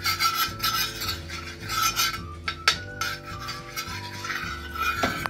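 A steel spoon scrapes and rubs back and forth across a tawa, a flat griddle, spreading oil over it in strokes about twice a second. There is one sharp clink of the spoon against the pan near the middle.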